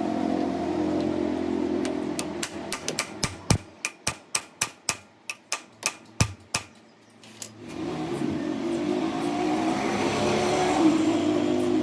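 A motor-driven machine running steadily, then about fifteen sharp metallic knocks over roughly four seconds. After a short lull the machine runs again.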